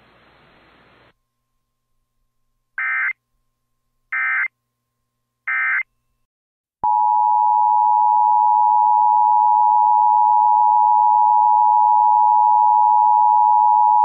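Emergency Alert System tones: three short buzzy bursts of SAME digital data about a second and a half apart, then the steady two-tone EAS attention signal (853 and 960 Hz), starting about seven seconds in and holding unbroken at a constant level.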